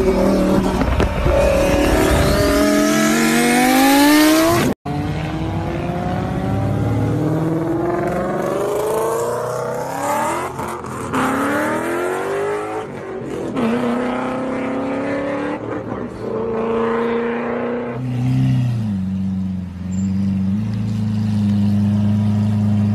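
A motor revving up again and again, each rev a rising whine that climbs for a second or a few, with a sudden brief cut about five seconds in. Near the end it settles into a steadier low hum that shifts in pitch in steps.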